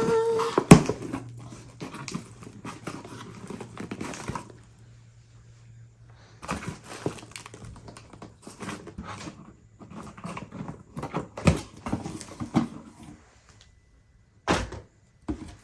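Hands opening a shipping package: scattered rustling, tearing and knocks, with a short quiet spell near the middle.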